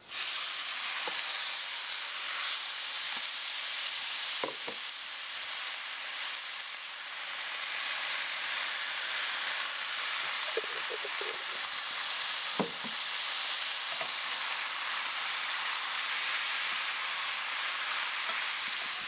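Meat, noodles and sauce sizzling in a hot frying pan, a steady hiss that starts suddenly, with a few light knocks of the spatula and pan as the food is stirred.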